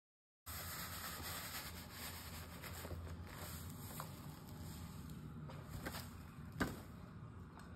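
Dry graham cracker crumbs pouring from a cardboard box into a glass baking dish and being pushed around by hand, a soft rustling hiss with a few light taps and one sharper click near the end.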